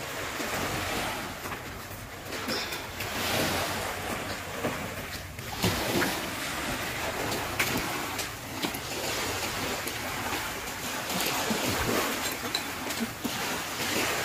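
Small sea waves washing on a sandy shore, swelling and easing every few seconds, with wind blowing across the microphone and a few short clicks.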